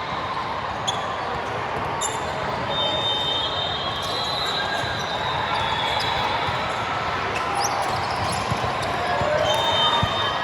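Gym sounds during a club volleyball match: sneakers squeak in short bursts on the court floor, with the odd sharp hit, over a steady wash of background chatter. A single thump comes near the end.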